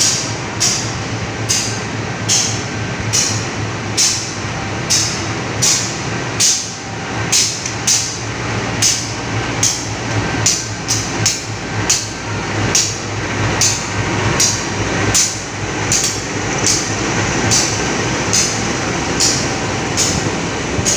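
Diesel locomotive idling with a steady low drone, under footsteps on a tiled platform about twice a second.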